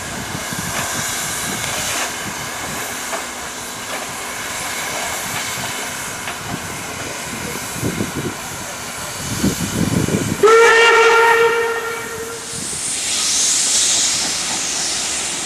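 Steam locomotive 50 622, a class 50 2-10-0, hissing steam steadily, with a few low puffs, then its steam whistle blown in one steady blast of about two seconds. A burst of high hissing steam follows the whistle.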